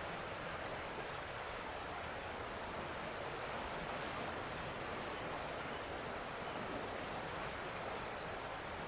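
Steady outdoor background hiss, like wind in foliage or distant running water, with no distinct events.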